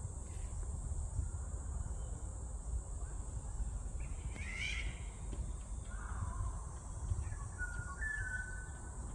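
Wild birds calling in a forest: a harsh call about halfway through, a lower call soon after, and short whistled notes near the end. Under them run a steady high hiss and a low rumble.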